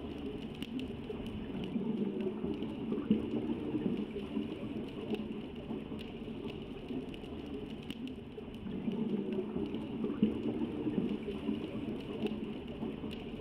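Underwater ambience: a low bubbling rush that swells twice, with scattered sharp clicks throughout.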